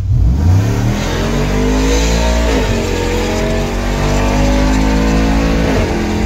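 Cammed engine of a GM NNBS truck under hard acceleration, heard from inside the cabin: the revs climb, drop sharply at an upshift about two and a half seconds in, climb again, and drop at a second upshift near the end.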